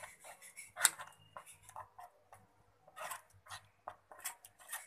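Silicone spatula stirring a thick, wet spice-and-onion paste in an enamel bowl: irregular soft scrapes and clicks against the bowl, with one sharper knock a little under a second in.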